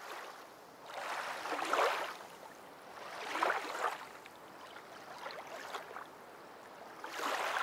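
Sloshing, rushing water, swelling up and fading away several times a couple of seconds apart.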